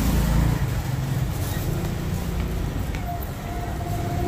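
Street traffic: a motor vehicle engine running with a steady low rumble. A steady higher tone joins about three seconds in.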